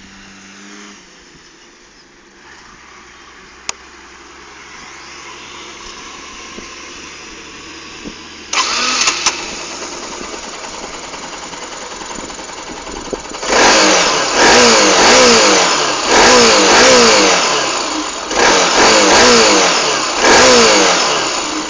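Bajaj Pulsar 200NS's single-cylinder engine starting about eight and a half seconds in, after a single click, then idling. From about thirteen seconds it is revved in about six short throttle blips, each falling back toward idle.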